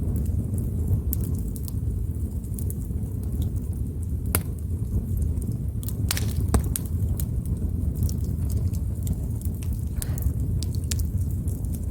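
Wood fire burning: a steady low rumble of flames with scattered sharp crackles and pops, a few louder pops about four and six seconds in.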